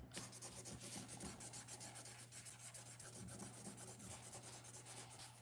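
Faint, quick rubbing and scratching strokes on a tabletop as Play-Doh is worked by hand, over a steady low hum.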